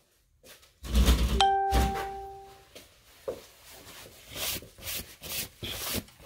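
An electronic beep: one steady tone held for just over a second, starting about a second and a half in, right after a burst of heavy thumps and knocks close to the microphone. Scattered rustling and light knocks follow.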